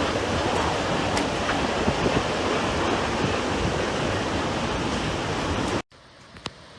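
Strong storm wind, a steady loud rush of noise buffeting the microphone. It cuts off abruptly near the end into a much quieter scene with a couple of faint clicks.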